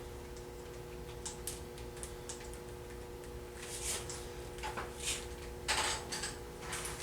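Light clicks and short rustles of things being handled, over a faint steady hum.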